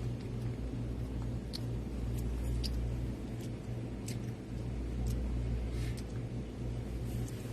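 Steady low mechanical hum, with a few faint short clicks and ticks over it.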